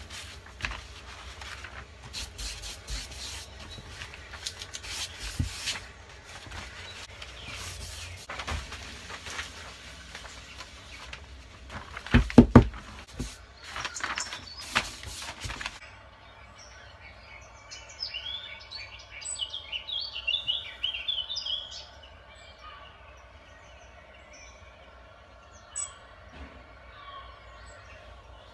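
Thin mounting paper rustling and crackling as the sheets are handled and laid down, with a few loud knocks about twelve seconds in. After an abrupt change about halfway through, birds chirp in short bursts of high calls.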